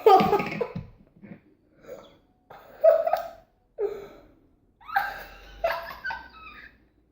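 A child's voice making short non-word sounds in about five brief bursts, with pauses between them.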